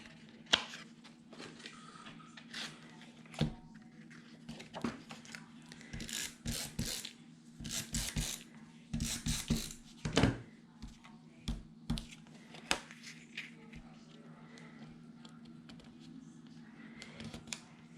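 Paper crafting at a table: scattered soft clicks, taps and crinkles as adhesive photo mounts and paper pieces are handled and pressed down, over a steady low hum.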